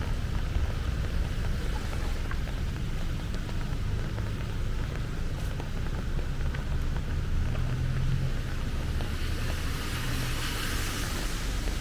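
Heavy rain falling steadily, with a low rumble underneath. About nine seconds in, a louder hiss swells up and holds to the end.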